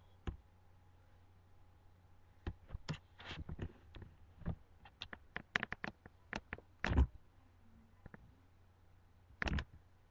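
A run of irregular, sharp clicks and knocks, thickest in the middle, with a last short cluster near the end, over a faint steady hum.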